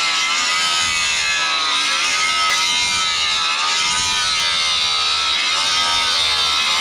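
Handheld electric power tool running continuously under changing load. Its motor pitch dips and recovers again and again as it is pressed into the work, over a steady abrasive hiss.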